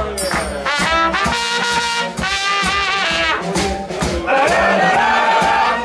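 Live blues band playing an instrumental break, with the horns carrying quick melodic runs over the rhythm section.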